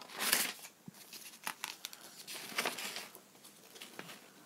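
Sheets of paper rustling and crinkling as a stack of printed school worksheets is handled and leafed through, in a few short bursts, the loudest at the start.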